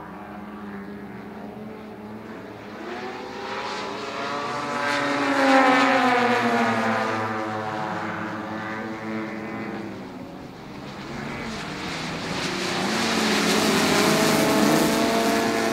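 Several propeller-driven radio-controlled aerobatic model airplanes flying together, their engine notes overlapping and gliding up and down in pitch as they pass. They are loudest about five seconds in and again over the last few seconds.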